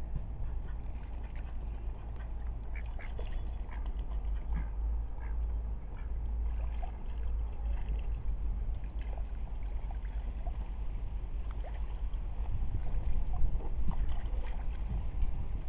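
Ducks quacking in short scattered calls, over a steady low rumble.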